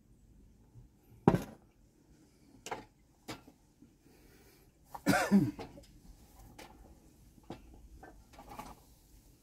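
Scattered knocks and clatters of a mug and hand tools being put down and picked up on wood, the sharpest about a second in. A longer rasping sound comes about five seconds in, followed by lighter clicks.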